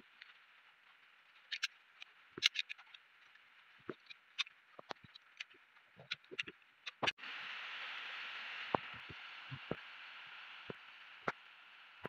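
Scattered small clicks and taps of a snap-off utility knife blade cutting notches into a dry twig, and of small bamboo pieces being handled, over a steady hiss. The hiss cuts out briefly about seven seconds in and comes back louder.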